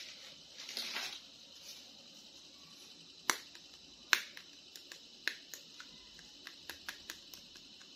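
Hard plastic action figure being handled: a brief brushing rustle about a second in, then three sharp clicks about a second apart, followed by a run of lighter, quicker ticks as the figure's plastic parts and joints are moved.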